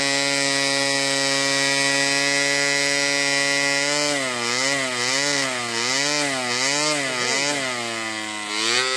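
Super Tigre G20 two-stroke model diesel engine running at full speed with its propeller. It runs at a steady pitch, then from about four seconds in its speed rises and falls in quick, even swings.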